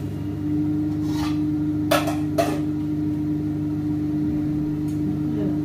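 Steady electric hum of a microwave oven running while it heats food, with two sharp knocks about two seconds in.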